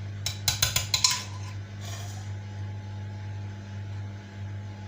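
A spoon clinking against a bowl and moulds: about six quick, sharp clinks in the first second, as madeleine batter is spooned into the moulds.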